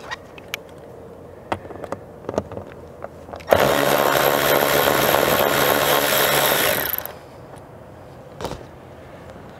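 A power driver with a T20 Torx socket on an extension runs for about three seconds, spinning out a roof-panel bolt, and winds down as it stops. Light clicks and taps of handling the tool and bolts come before it and a single tap after it.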